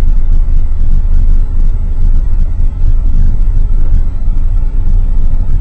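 Steady low rumble of a vehicle driving over a graded dirt road, heard from inside the cab.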